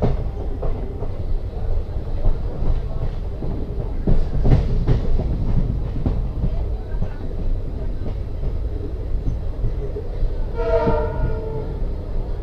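Railway coach rolling along the track: a steady low rumble with irregular clicks from the wheels over the rail joints. Near the end comes one short blast, about a second long, of the hauling WDP4 diesel locomotive's chord horn.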